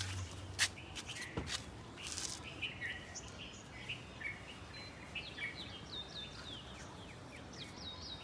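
Several small birds chirping outdoors, with many short high chirps and, from about five seconds in, a run of quick downward-sweeping chirps. A few sharp clicks sound in the first two seconds.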